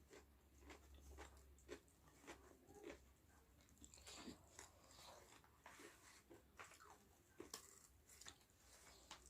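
Faint close-up chewing and crunching of crispy fried chicken (ayam geprek): irregular short crunches and mouth clicks, one or two a second, over a low steady hum.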